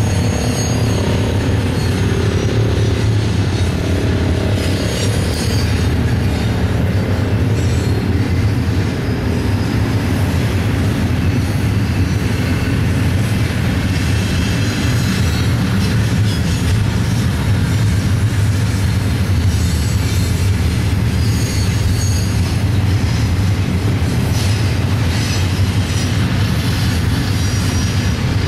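Double-stack intermodal freight cars rolling past: a steady loud rumble of steel wheels on rail, with clicks at the joints and now and then a short high wheel squeal.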